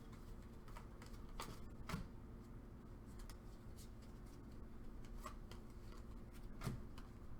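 Trading cards being handled and slid past one another while a pack is sorted through, giving a few scattered soft flicks and clicks over a faint steady hum.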